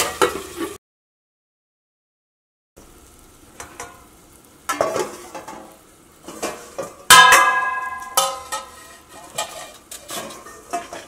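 Stainless steel stockpot and its perforated strainer insert knocking and clinking as the insert is handled, with one loud ringing metal clang about seven seconds in. It opens with a brief moment of a spoon stirring in the pan, followed by about two seconds of dead silence.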